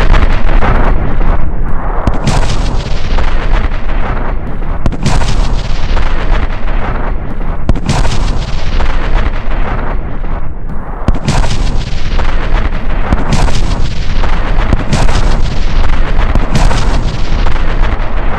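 Bomb explosion sound effect: a loud series of blasts, one every two to three seconds, each followed by a rumbling roar that carries straight into the next.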